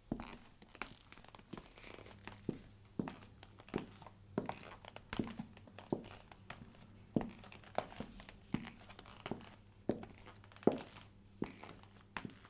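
High-heeled shoes clicking on a hard floor at a slow, even walking pace, about one step every three quarters of a second, with leather creaking between the steps.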